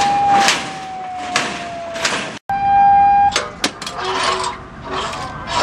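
A long, steady horn blast that sags slightly in pitch over about two seconds, then a second, shorter blast at the same pitch. Voices and noise follow in the second half.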